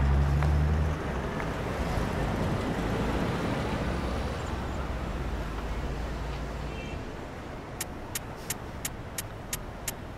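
City street ambience: a steady wash of traffic noise from passing cars, with a low engine rumble that drops away about a second in. Near the end, a light regular ticking comes in, about three ticks a second.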